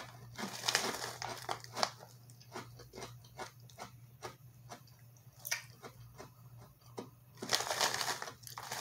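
Close-up chewing of crunchy wavy potato chips: a string of irregular crisp crunches, several a second, slowly thinning out.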